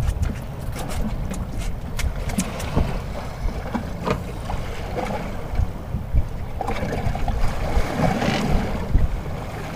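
Wind buffeting the microphone over choppy water around a small fishing boat, with a steady low rumble and a few light knocks.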